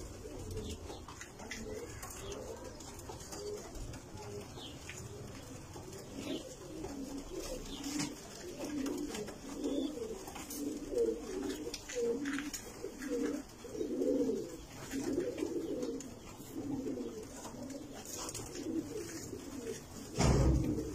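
Many domestic pigeons cooing together in a loft, their calls overlapping throughout. There is a loud thump near the end.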